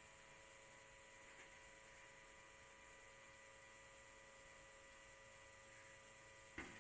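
Near silence: room tone with a faint steady electrical hum made of a few thin steady tones, broken near the end by a short sharp handling knock.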